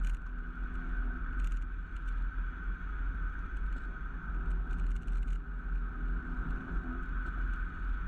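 Mercedes-AMG A35 on the move, its turbocharged four-cylinder engine running steadily under a heavy low rumble of road and wind noise, with a few short sharp ticks.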